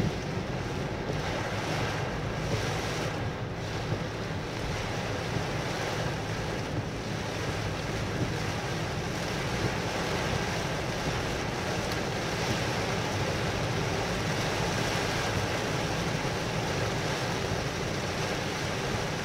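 Steady rushing noise of a car driving through heavy rain, heard from inside the car: rain on the windscreen and body and tyres on the wet road, with no distinct events.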